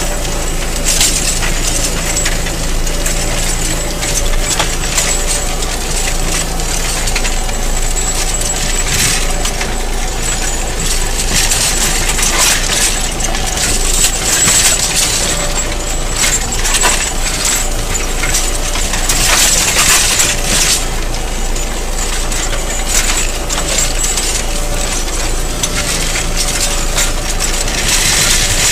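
Kverneland mouldboard plough cutting through stony soil: stones and earth scraping and clinking against the steel shares and mouldboards in a constant crackling rattle, with a steady tractor engine hum underneath.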